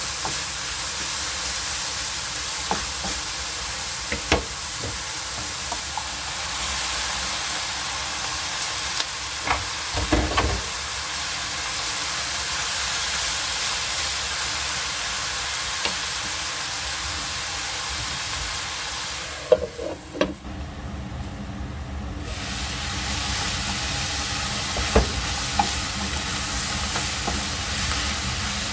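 Spring cabbage and ground meat stir-frying in a hot pan: a steady sizzle broken by the scrapes and clicks of stirring. About two-thirds of the way through, the sizzle drops away for a couple of seconds with a few knocks, then comes back.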